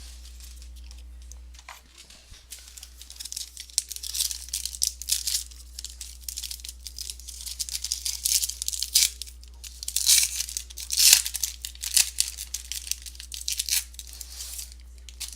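Trading-card pack wrapper being torn open and crinkled by hand, a run of irregular crackles and rips with a few sharp louder tears.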